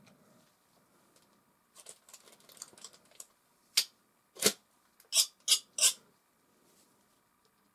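Steel palette knife working oil paint off-canvas: soft crackly scraping, then five short, sharp scrapes of the blade between about four and six seconds in.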